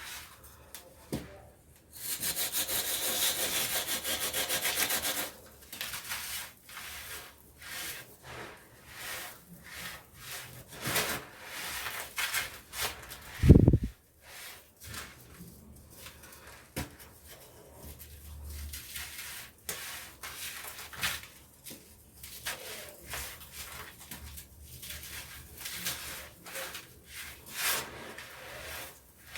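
Dry cement blocks being crumbled: gritty crunching and crumbling in many short separate bursts, with a stretch of about three seconds of continuous grating rub soon after the start. One loud low thump about halfway through.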